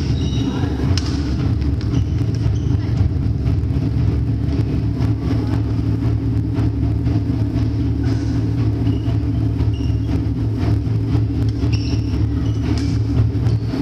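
Badminton rally: rackets strike the shuttlecock in sharp clicks, and shoes squeak briefly on the wooden court a few times in the second half. Under it all runs a steady low rumble.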